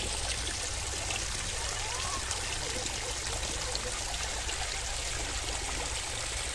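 Small creek trickling steadily over stones, with a steady low rumble underneath.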